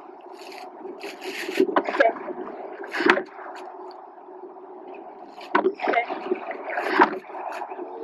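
Rowing shell under way: oars knocking in their oarlocks at each stroke a second or two apart, over a steady wash of water along the hull. A faint steady hum runs underneath.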